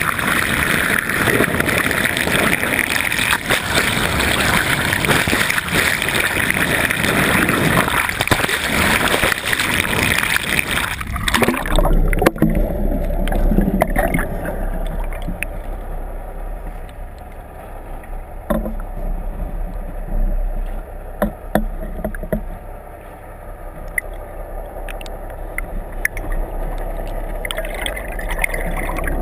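Underwater sound through a camera housing: loud rushing water noise for about the first eleven seconds, then an abrupt change to a low steady hum of a boat's engine heard through the water, with scattered faint clicks.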